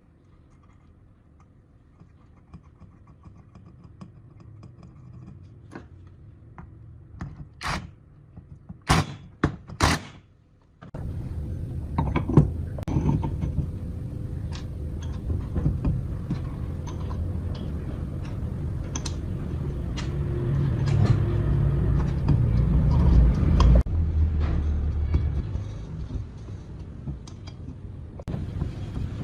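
A few sharp knocks and clicks, then, about eleven seconds in, the restored minibike's vintage two-stroke engine running with a loud, uneven low rumble that eases slightly near the end.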